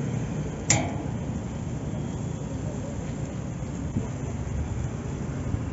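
Metal tongs clack once, sharply, against the steel grate of a charcoal grill about a second in while turning chicken wings. A steady low street rumble runs underneath.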